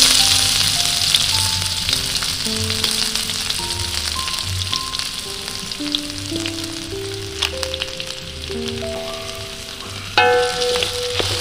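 Food frying in hot oil in a pan, a steady loud sizzle that swells again in a sudden burst about ten seconds in. A slow melody of held notes plays quietly underneath.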